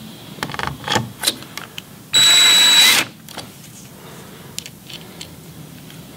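Cordless drill-driver driving a screw back into a keyboard's key-assembly frame: one steady burst of motor whine, a little under a second long, about two seconds in. A few light clicks come before it.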